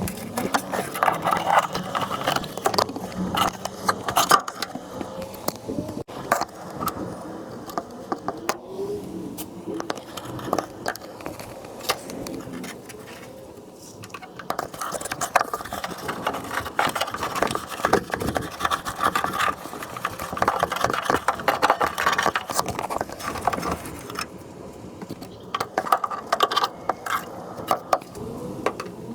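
Hands-on repair work: irregular scraping, clicking and rattling, with many small knocks.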